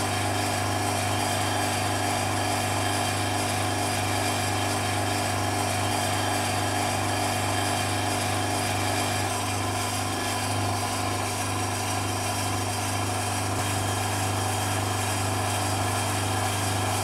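Electric vacuum pump running steadily with a constant motor hum, drawing down a vacuum chamber.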